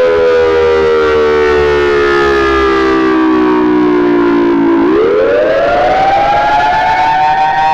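Outdoor warning siren wailing. Its pitch sinks slowly for about five seconds, then climbs quickly again and holds near the top.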